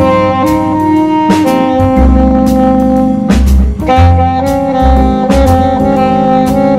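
Saxophone improvising a jazz line in F minor, mostly long held notes with a few quick changes of pitch, over a backing track of bass and drum kit.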